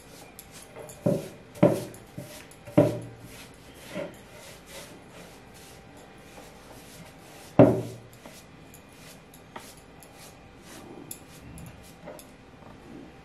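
Flat paintbrush stroking sealer onto a decoupaged wooden board: soft rubbing of bristles on wood, with a few short louder thumps, three in the first three seconds and one more about seven and a half seconds in.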